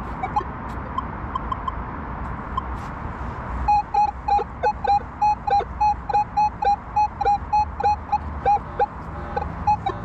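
Minelab Manticore metal detector giving target tones in single-frequency 10 kHz mode: a few faint short beeps at first, then about four seconds in a loud run of short pitched beeps, about three a second, as the coil sweeps over the target. The screen reads a high target ID of 85, a high-conductor, non-iron signal.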